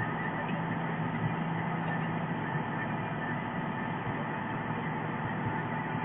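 Steady running of a DAF CF concrete pump truck's diesel engine, which drives the hydraulics as its Cifa boom is moved.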